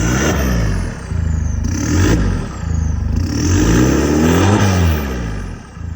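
Nissan Navara pickup's engine revved through its new custom-built full exhaust during a sound check: three throttle blips rising and falling, the last the longest, settling back to idle between them.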